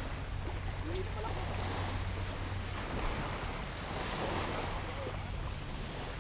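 Steady wash of small waves breaking on the shore, with wind rumbling on the microphone.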